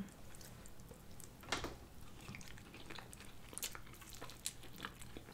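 Faint wet chewing and lip smacks of people eating curry and rice by hand: scattered soft clicks, with one louder smack about one and a half seconds in.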